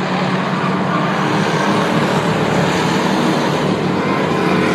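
Engines of a pack of stock cars running at racing speed around a short oval, a steady loud drone.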